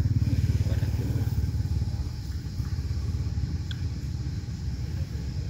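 A small engine, like a motorcycle's, running steadily with a fast, low pulse, easing off a little about two seconds in.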